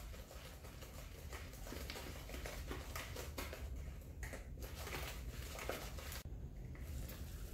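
Wire whisk stirring thick carrot cake batter in a mixing bowl: soft, repeated strokes a few times a second.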